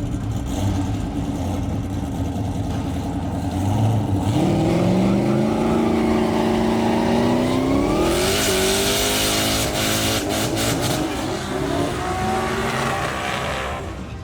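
Drag racing car's engine revving, its pitch climbing over several seconds and holding high, with a loud hiss and crackles joining about eight seconds in.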